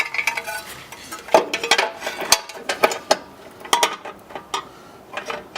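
Irregular metallic clinks and knocks, some with a short ring, as metal hardware and brackets are handled and set in place.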